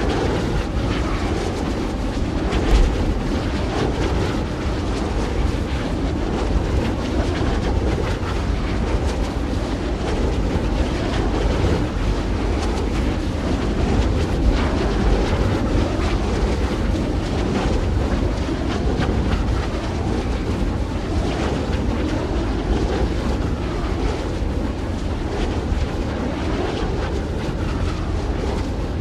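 Wind blowing steadily: a dense rushing noise, heaviest in the low end, with small gusts swelling and easing, and a brief louder buffet about three seconds in.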